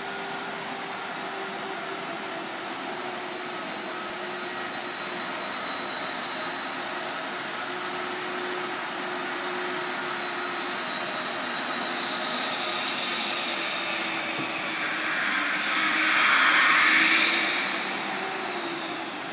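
Steady whirring machine noise with faint high whines running through it, swelling into a louder hiss for a couple of seconds near the end.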